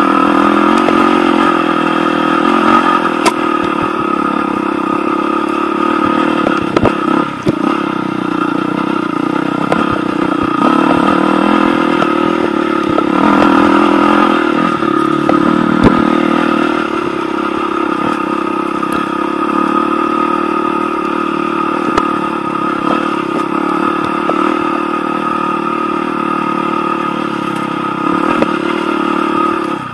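Enduro motorcycle engine running steadily while riding a rough dirt trail, the revs rising and easing a little around the middle, with a few sharp knocks along the way.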